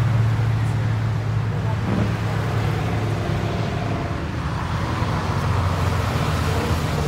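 Cars passing on the road. A deep, steady exhaust rumble from the green Dodge Challenger going by is loudest at the start and fades, and another engine rumble rises again about five to six seconds in over road noise.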